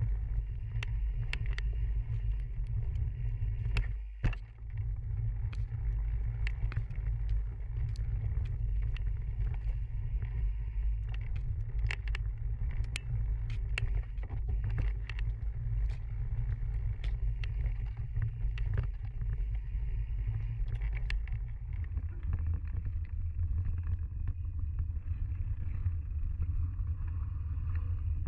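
A mountain bike riding a rough forest trail: a steady low rumble of wind and ground vibration on the mic, with frequent sharp clicks and rattles from the bike over bumps. The rumble changes about three-quarters of the way through, as the ride leaves the trail for a smoother path.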